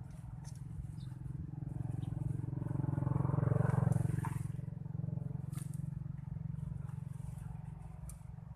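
A motor vehicle's engine humming as it passes, growing louder to a peak about halfway through and then fading away, with a few light clicks and taps on top.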